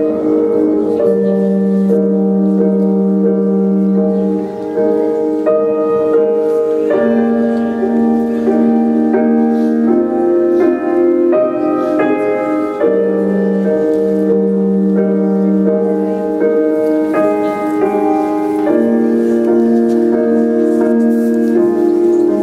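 Instrumental music: a slow melody of long held notes over sustained chords, changing about once a second.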